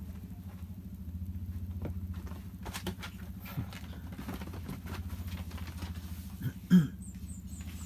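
Kittens and a cat scampering and pouncing on a bed sheet: soft pattering and rustling over a steady low hum. A short, loud pitched cry near the end.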